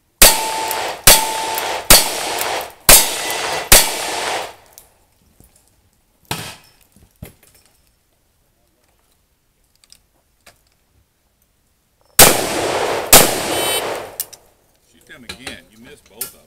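Five revolver shots at a steady pace of about one a second, with a metallic ring after the first two. After a pause come two shotgun shots less than a second apart, from a side-by-side double-barrel shotgun, each followed by a long echo.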